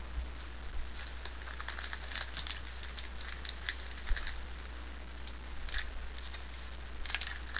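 Light crinkling and rustling of a trading card pack wrapper and cards being handled, in short scattered bursts.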